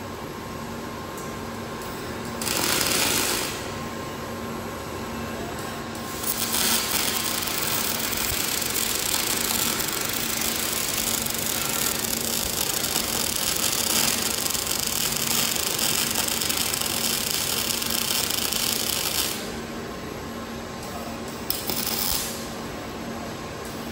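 Robotic MIG welding arc crackling and sizzling in separate welds: a short one about 2.5 seconds in, a long continuous one from about 6 to 19 seconds, and another short one near the end. Between welds only a steady hum of the welding equipment is heard while the robot moves the torch.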